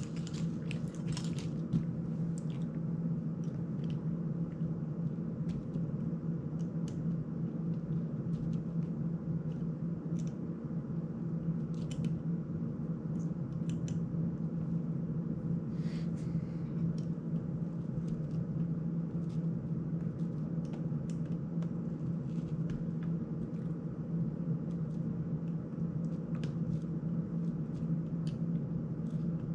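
Steady low hum with scattered light clicks and taps as small screws and the plastic prop guard of an FPV drone are handled and worked loose.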